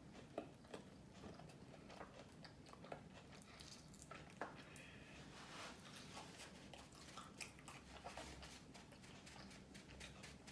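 Faint chewing and biting of food, with scattered soft mouth clicks and smacks throughout.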